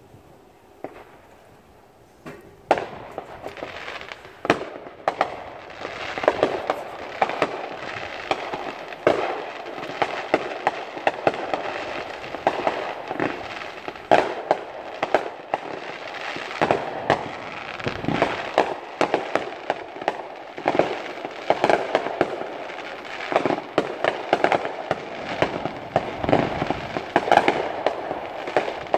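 Fireworks display: after a quiet couple of seconds, a dense, continuous barrage of sharp bangs and crackles sets in and keeps going.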